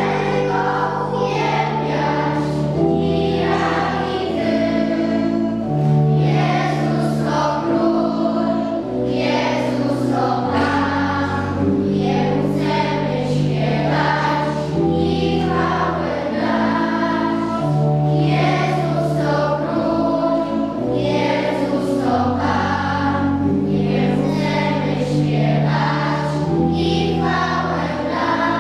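Children's choir singing a Polish worship action song together, over an instrumental accompaniment with a bass line that moves about once a second.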